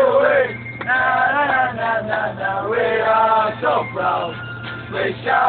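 A group of drunken football supporters singing a terrace chant together in sung phrases with short breaks, over the minibus's steady low engine drone.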